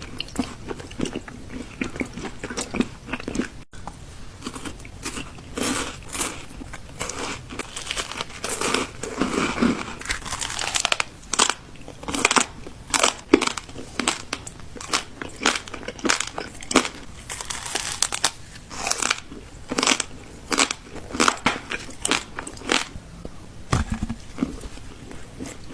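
A person chewing and biting crunchy food close to the microphone, a steady run of sharp crunches about one or two a second.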